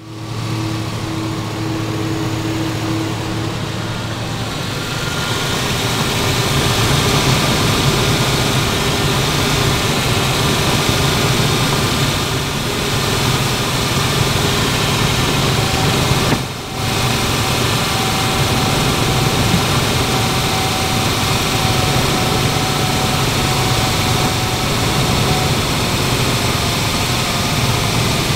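1998 Ford Ranger's 4.0-litre OHV V6 idling steadily after a jump start, running on the battery alone because its failing alternator is not charging. There is one short dip in loudness partway through.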